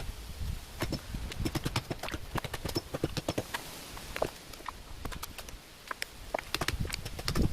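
A run of irregular sharp clicks and knocks, several a second, with no steady machine sound.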